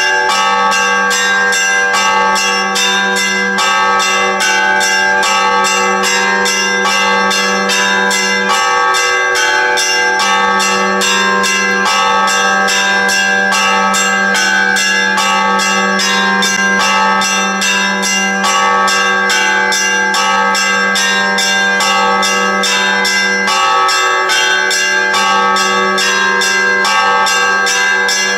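Church bells ringing continuously: several bells struck in a fast, even rhythm over a lower humming bell tone.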